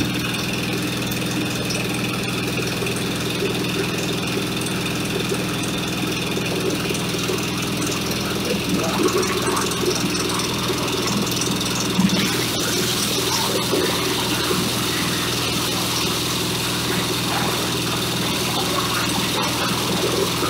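Single-cylinder diesel engine running steadily, driving a corn husker-sheller, with the clatter of husked ears being shelled inside the drum; a sharp clack stands out about twelve seconds in.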